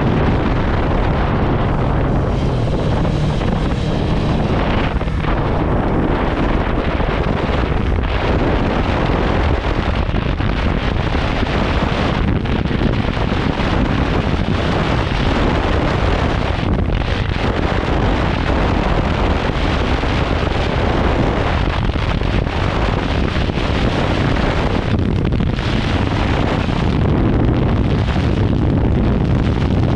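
Steady, loud wind noise buffeting the microphone on a moving motorcycle, a 2017 Yamaha YZF-R3, with its parallel-twin engine running underneath.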